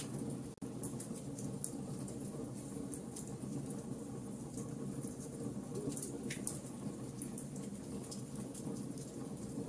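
Wood fire burning in a fireplace: a steady low rush of flames under scattered small crackles and pops, with a brief hiss about six seconds in.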